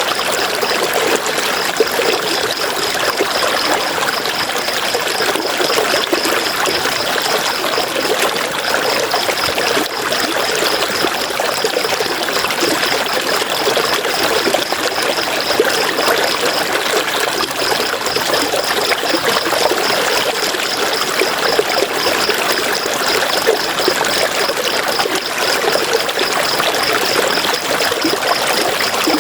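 River water flowing in a steady rush and trickle. Over it runs a high-pitched pulsing, about four pulses a second, that stops briefly twice.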